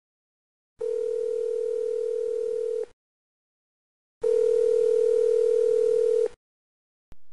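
Telephone ringback tone, the ringing a caller hears: two long beeps of one steady mid-pitched tone, about two seconds each, the second louder. A short click near the end, as the call is answered.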